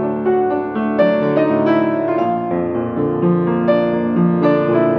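Background piano music: a piano playing a melody of struck notes.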